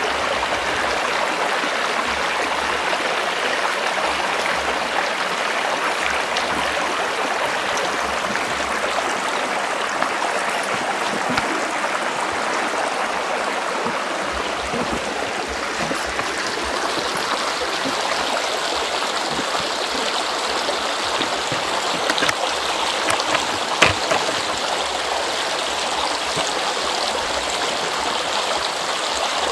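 A small stream flowing steadily, with a few light knocks in the second half.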